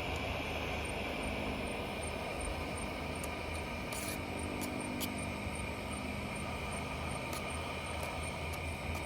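Steady low droning hum, with a constant high insect trill and faint regular chirps about twice a second over it.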